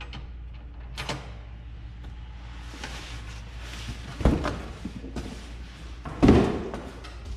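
Rustling of packaging, then two heavy knocks about two seconds apart, the second the loudest, as a metal tent stove is handled while it is unpacked.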